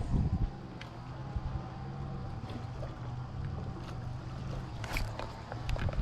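Steady low motor hum with wind noise, and a few light clicks.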